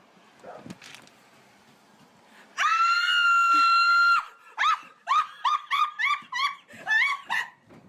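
A person screams in excitement: one long high-pitched scream held for about a second and a half, then a quick run of short, breathless high cries.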